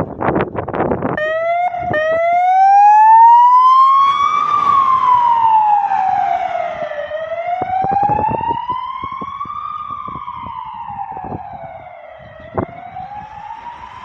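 Emergency-vehicle siren on a VW Caddy ambulance doctor car: two short blips about a second in, then a slow wail rising and falling every few seconds, growing fainter as the car drives away. A loud rough rush of noise fills the first second, and a sharp click sounds near the end.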